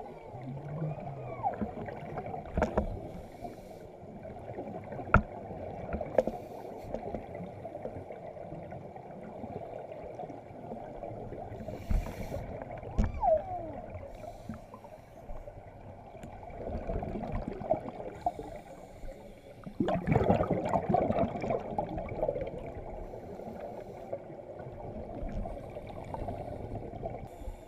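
Muffled underwater sound of scuba regulators: gurgling bubbles from divers' exhalations, with scattered clicks and knocks. A longer, louder rush of bubbles comes about two-thirds of the way through.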